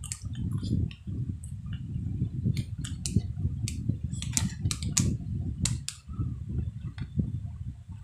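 Chewing of shomai dumplings close to the microphone: irregular, low mushy chewing, with a run of sharp wet mouth clicks and smacks between about two and six seconds in.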